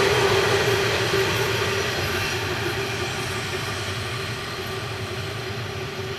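Loaded iron-ore train's wagons rolling past on a downgrade with their brakes applied, the rumble of wheels carrying a steady high squeal. The sound fades steadily as the end of the train draws away.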